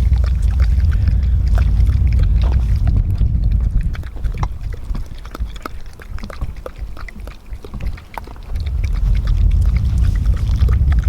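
A dog eating wet dog food from a cup: a quick run of small wet clicks and smacks. Low wind rumble on the microphone underneath, easing off for a few seconds in the middle.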